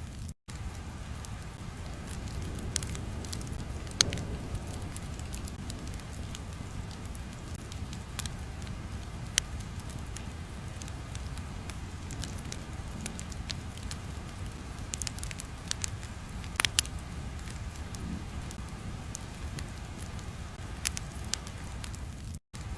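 Crackling fire ambience: a steady low rumble with irregular sharp pops and snaps. It cuts out briefly just after the start and again just before the end.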